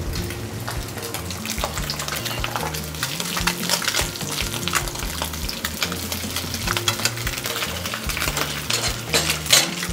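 Sea bream skin and fillet frying in bubbling butter in an aluminium pan, a steady sizzle with crackles, while a utensil clicks and scrapes against the pan.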